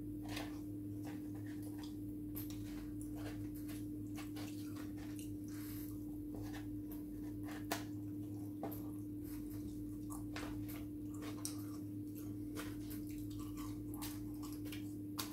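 Close-up eating sounds of a person biting and chewing fried chicken: many short wet mouth clicks and smacks, with a sharper click about halfway through, over a steady low hum.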